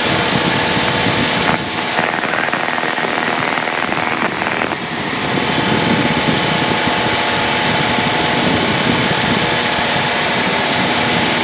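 A Cessna 172N's Lycoming O-320 four-cylinder engine and propeller droning steadily at climb power after takeoff, heard through the headset intercom with a steady electrical hum. The noise changes briefly from about a second and a half to five seconds in.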